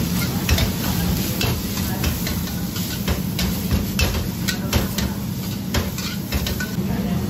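Onions and green chillies stir-fried in a black wok: a long-handled metal spatula scraping and knocking against the wok at irregular intervals, over sizzling. A steady low hum runs underneath.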